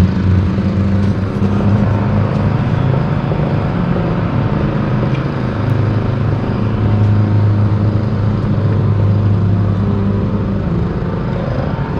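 A steady, loud low mechanical rumble with a hum, like a running engine.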